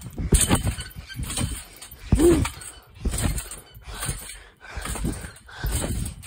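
Rhythmic trampoline bouncing, about one bounce a second, each landing a dull thump on the mat, mixed with the jumper's heavy panting breaths.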